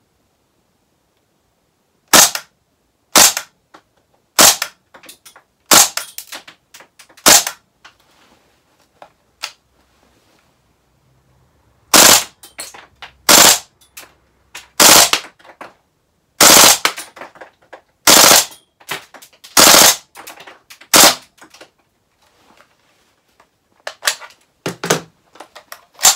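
Gas blowback airsoft L85A2 rifle firing single shots, about one every one and a half seconds. Each is a sharp, loud crack of released gas with the bolt slamming in the receiver. Five shots come first and, after a pause, seven more, with a few quieter clicks and cracks near the end.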